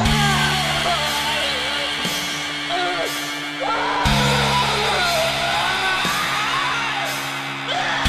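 Rock band music with guitar and a singing voice whose melody wanders up and down; the low chord changes about every four seconds.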